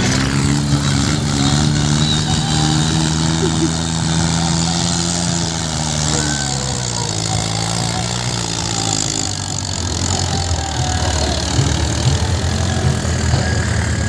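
Mahindra tractor's diesel engine working hard as it drags a loaded earth scraper through sand. Its note holds steady, then sags about six or seven seconds in and carries on lower and rougher.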